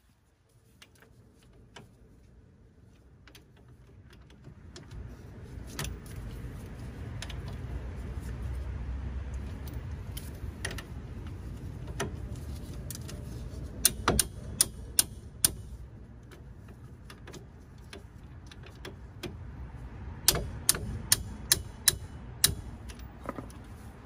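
Ratchet wrench and sockets clinking while the new wheel hub's mounting bolts are tightened, with two runs of sharp metallic clicks, one about halfway through and one near the end, over a low rumble.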